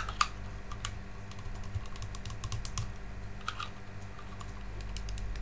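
Small black plastic fountain-pump nozzle fittings clicking and tapping against each other as they are handled and pushed together, a sharp pair of clicks at the start and scattered lighter ones after.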